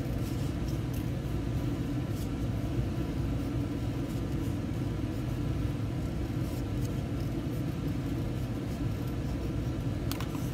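Scissors cutting paper in slow, faint, scattered snips over a steady low rumble.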